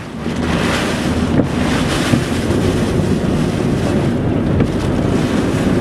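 Strong wind and heavy rain buffeting a car in the inflow of a rain-wrapped tornado, with wind rumbling on the microphone: a loud, steady rushing noise.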